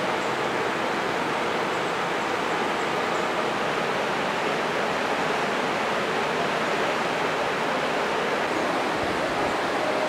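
Fast mountain stream rushing over rocky rapids: a steady, unbroken rush of water.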